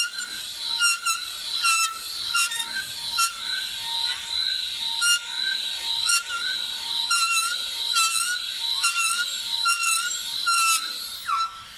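Three-angle valve seat cutter scraping and squealing as it cuts a valve seat in a cast-iron truck cylinder head, in a run of repeated squeaks about one or two a second. A falling squeal comes near the end as the cutting stops.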